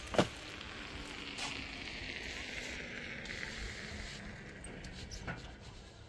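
A shovel knocks sharply once against a wheelbarrow as a load of concrete mix is tipped in, followed by two lighter knocks over a steady hiss.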